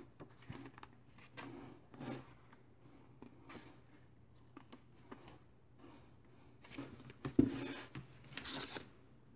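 Pages of a small paperback book being flipped and rustled by hand, with soft paper scrapes. Near the end, louder rustling and scraping as books are handled and pulled from among others in a cardboard box.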